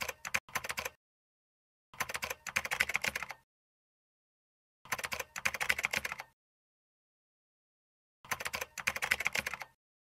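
Computer-keyboard typing sound effect: four bursts of rapid key clicks, each about a second or a second and a half long, with dead silence between them.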